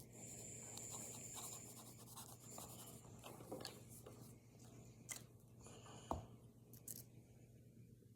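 Faint scratching and rubbing of a drawing tool colouring in on a drawing, with a few light clicks or taps around the middle.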